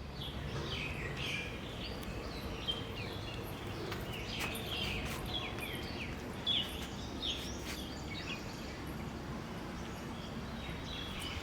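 Birds chirping, with many short, quick falling calls repeated throughout over a steady low background hum. A few soft clicks or knocks sound in the middle.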